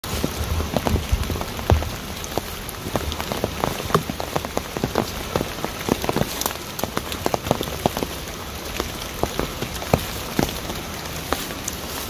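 Mountain stream cascading, a steady rush of water with many quick, irregular splashes and drips. A few low thumps come in the first two seconds.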